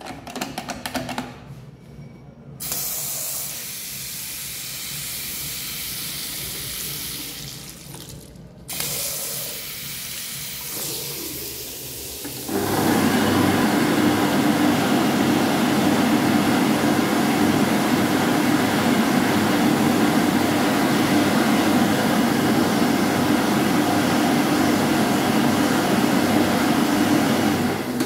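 Push-button electric hand dryer blowing steadily after a quieter stretch of rushing noise: its fan and heater start about twelve seconds in and run loud and even until it shuts off at the end.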